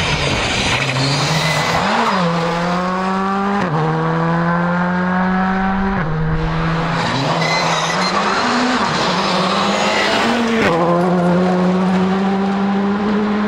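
Rally cars at full throttle on a gravel stage, engines revving hard with the pitch climbing through each gear and dropping sharply at every upshift, several times over. A hiss of tyres and thrown gravel runs underneath.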